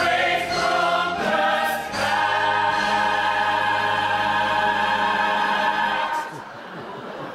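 A musical-theatre cast singing together in chorus, ending on one long held chord that stops about six seconds in.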